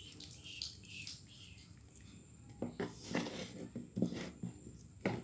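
Faint scattered hissy sounds, then, from about halfway through, a soft wordless voice in several short stretches.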